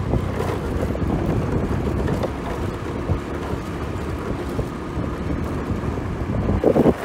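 Wind buffeting the microphone: an uneven low rumbling noise, briefly louder near the end.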